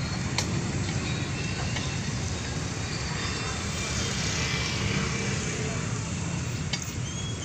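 Steady road traffic noise, an even rumble and hiss of passing vehicles without a break.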